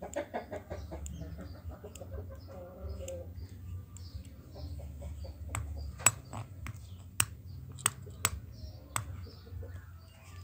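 A chicken clucking, followed in the second half by about seven sharp knocks of the metal padlock tapping against the stone.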